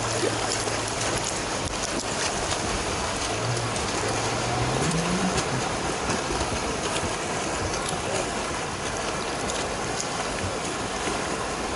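Steady rush of sea water splashing and surf as swimmers charge through the shallows, with a low engine hum that rises in pitch about four to five seconds in.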